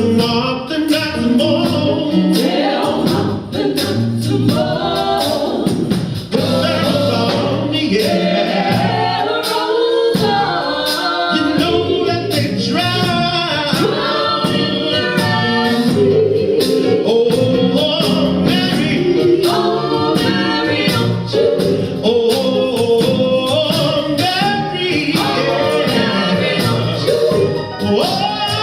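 Gospel choir singing live over instrumental accompaniment with a steady beat.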